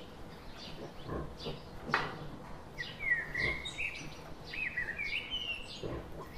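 Birds chirping in short notes repeated about twice a second, with two longer high, wavering calls in the middle.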